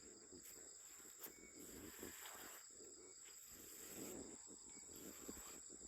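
Faint, steady high-pitched chirring of night insects such as crickets, with faint rustling lower down.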